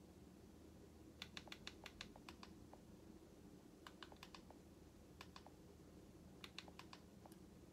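Faint clicking of the buttons on an Android TV box's remote control, pressed in quick runs of several clicks with pauses between them.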